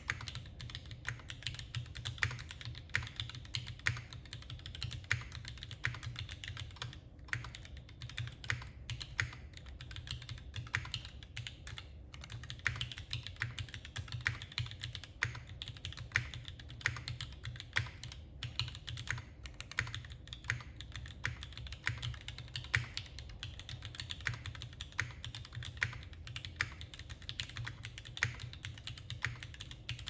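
Mechanical keyboard with Gateron Yellow linear switches and GMK keycaps being typed on continuously, a quick even stream of several keystroke clicks a second over a steady low hum.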